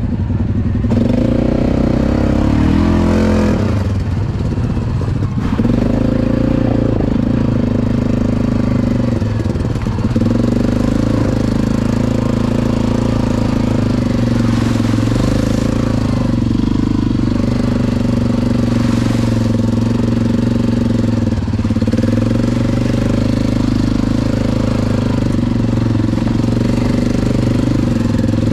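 ATV engine running as it is ridden. Its pitch wavers over the first few seconds, then it runs at a fairly steady speed, with brief drops around 5, 10 and 21 seconds in.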